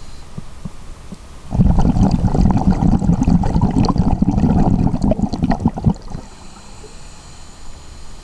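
Scuba diver's exhaled air bubbles from the regulator, heard underwater: a loud bubbling rumble with crackling that starts about a second and a half in and dies away after about four and a half seconds.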